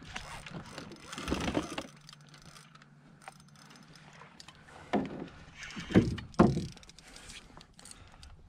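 Dull knocks and bumps around a small fishing boat while two anglers hold bent rods on hooked catfish: a soft rustle early, then three thumps close together a few seconds in, over a faint steady hum.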